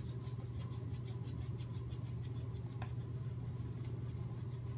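Shaving brush working soap lather on the face: faint soft rubbing strokes over a steady low hum.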